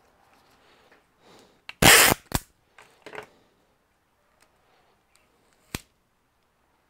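Handling knocks from a laptop chassis and its plastic parts: one loud knock about two seconds in, a few lighter knocks just after, and a single sharp click near the end.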